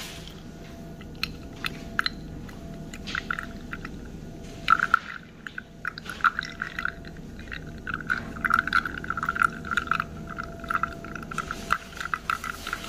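A thin stream of coffee runs from a manual espresso press's basket into a glass pitcher and splashes onto the coffee already in it. Many small spattering ticks grow denser in the second half. It is a re-extraction through an already used espresso puck.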